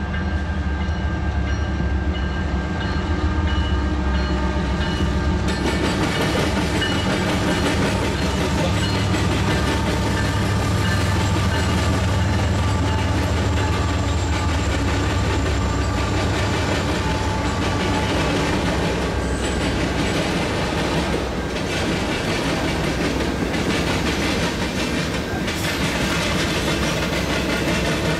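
CN freight train passing: the diesel locomotives' engines give a heavy, steady rumble, then the freight cars roll by with wheel clatter over the rail joints.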